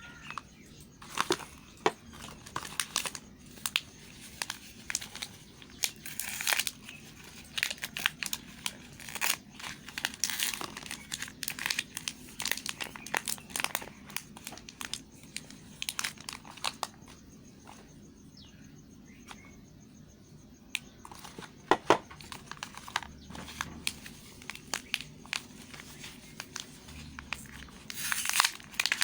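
Irregular crinkling and crackling of the wrappers as Lux soap bars are unwrapped, with scattered sharp snaps and a short run of louder crackles near the end.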